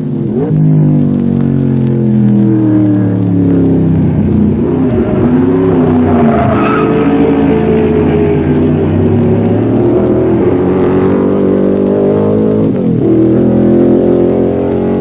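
Racing car's V8 engine running hard, its pitch briefly dipping and climbing back again three times: near the start, around the middle and near the end.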